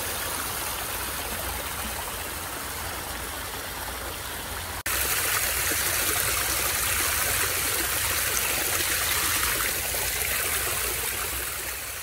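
Shallow stream water rushing and splashing as it cascades over sloping rock, a steady noise of running water. It turns abruptly louder about five seconds in and fades away near the end.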